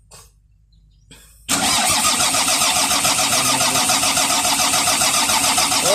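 Volvo D6D diesel engine cranking on its starter with an even, rhythmic chug for about four and a half seconds, beginning about a second and a half in, without firing: the engine cranks but will not start, traced to a fuel-supply fault.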